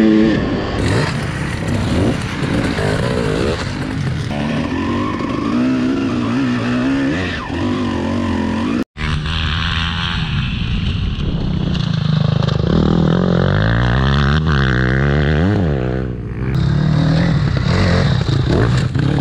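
2001 Honda CR250's single-cylinder two-stroke engine heard from on board, revving up and down repeatedly. After a sudden cut about nine seconds in, enduro dirt bikes rev as they ride the dirt track.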